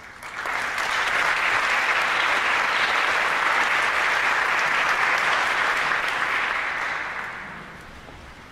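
Audience applauding, rising about half a second in, holding steady, then dying away near the end.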